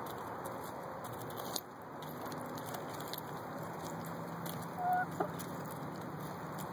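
Hens pecking hard at an ear of corn held in the hand, their beaks striking the cob in short clicks, with a short cluck about five seconds in over a steady background hiss.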